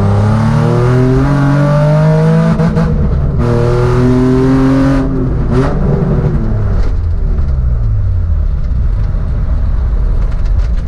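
Nissan 350Z's swapped 1JZ turbo inline-six accelerating hard from inside the cabin: revs climb, drop at an upshift about three seconds in, and climb again. About five seconds in the driver lifts off, and the revs fall steadily as the car slows.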